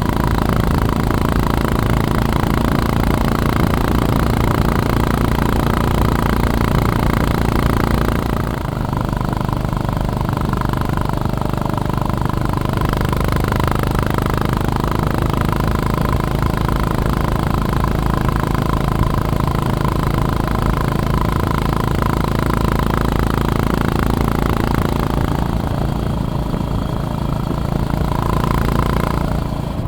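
Honda GB350S's air-cooled single-cylinder engine running steadily while riding, with a steady rush of noise alongside. The engine note dips and settles at a new pitch about eight seconds in, and changes again near the end.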